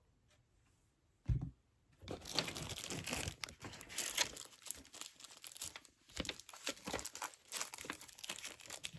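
Plastic wrapping crinkling and tearing as it is handled and pulled off a new pair of jewelry wire cutters. It starts about two seconds in after a single soft thump and carries on in an irregular crackle.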